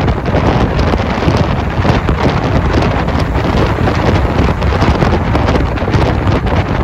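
Wind buffeting the microphone on a moving two-wheeler, a loud steady rush with road and engine noise underneath.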